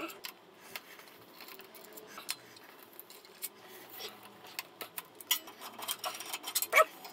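Light metallic clicks and clinks of a hand tool working the 8 mm clutch cover bolts out one by one, coming irregularly and growing busier near the end.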